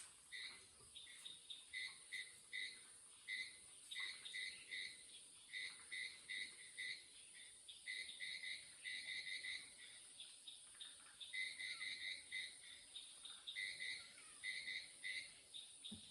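Night chorus of insects and frogs: a steady high-pitched insect drone, with short pitched calls repeated in quick clusters of two to four throughout.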